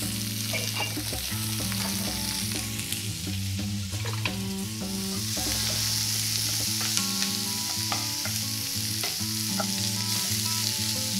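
Sliced onions and red peppers sizzling in hot olive oil in a pan, with a wooden spatula stirring them and clicking against the pan now and then.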